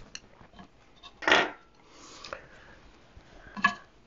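Quiet hand-handling of small wires and parts on a wooden frame, with one short, louder rustle about a second in and a small click near the end.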